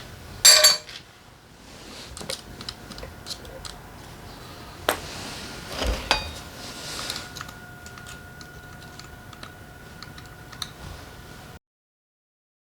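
Small metal engine parts and hand tools handled on a workbench during motorcycle engine disassembly. A ringing metal clink comes about half a second in, then scattered light clicks, and two sharper knocks around five and six seconds in, the second ringing briefly. The sound cuts off abruptly near the end.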